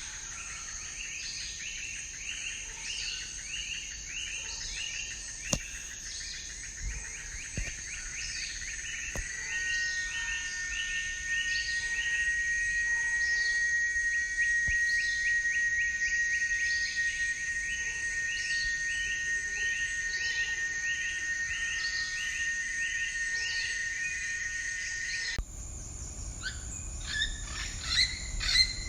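Tropical chorus of insects and birds: a steady high insect drone with quick rows of repeated chirping calls, and a steady held tone joining about a third of the way in. Near the end the sound changes abruptly to scattered bird calls over a low rumble.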